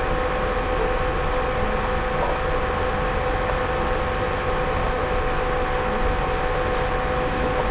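Steady hiss with a constant electrical hum, unchanging throughout.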